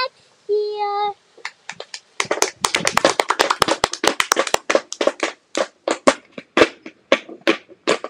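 Tap shoes striking a wooden tap board in a tap dance: quick, uneven clicks, several a second, densest in the middle and thinning toward the end. They follow a child's short sung call at the start.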